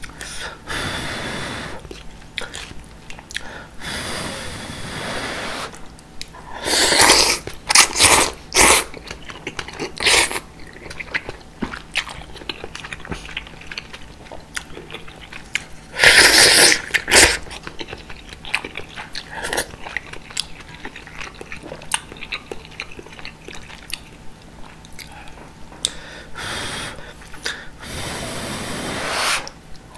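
Close-miked eating of thick udon noodles: several loud slurps of noodles and broth, each lasting a second or two, with soft wet chewing and small mouth clicks between them.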